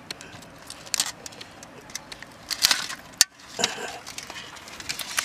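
Large crab being cleaned by hand in an aluminium basin of water: irregular scraping and shell clicks, with a sharp click about three seconds in and water sloshing as the crab is lifted out near the end.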